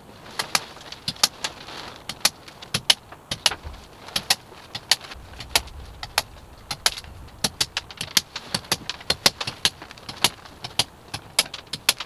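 Hammer tapping a chisel to knock the protruding tops off wooden screw plugs in sapele hull planking, one hit per plug to trim them nearly flush. Dozens of sharp, irregular taps, a few a second.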